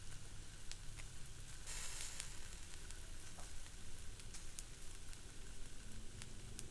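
Fish sizzling on a grill, a steady hiss broken by frequent sharp pops and crackles of fat, with a louder hissing swell about two seconds in.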